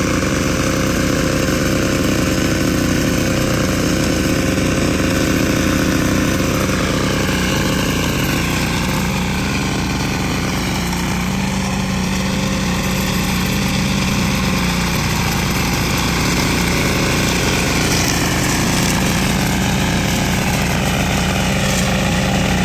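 R180 single-cylinder diesel engine of a multi-purpose grass-cutting machine running steadily, its speed drifting slightly up and down.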